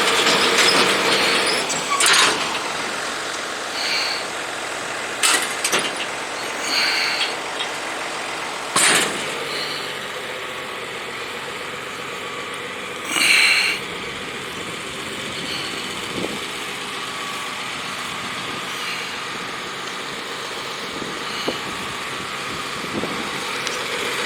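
John Deere 535 round baler running: a steady mechanical clatter with several short clanks and a few brief high squeals.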